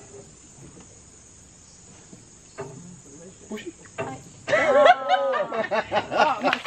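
Faint steady high insect buzz over still water, with a few soft knocks and splashes from a wooden fishing pole worked on the surface to draw piranhas. About four and a half seconds in, a loud, wavering, wordless call takes over.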